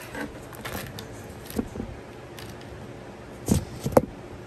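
Scattered light clicks and knocks of things being handled on a desk, with two louder knocks about three and a half and four seconds in.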